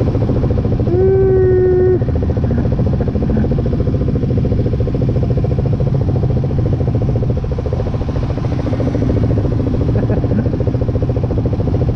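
Off-road vehicle engine running steadily under way, with a fast, even firing rhythm. A brief held tone, about a second long, sounds about a second in.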